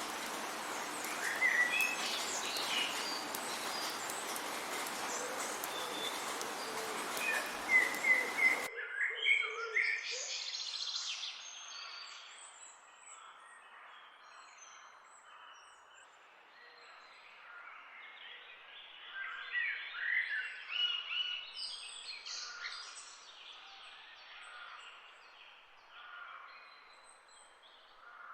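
Songbirds chirping over the steady hiss of rain. About nine seconds in the rain cuts off abruptly, leaving only quieter birdsong of varied chirps and warbles, with a busier stretch later on.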